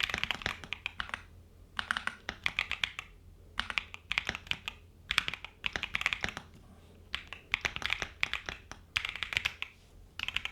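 Typing on a Keychron Q2 Max mechanical keyboard with Gateron Jupiter Banana switches: quick runs of key presses in short bursts with brief pauses between them.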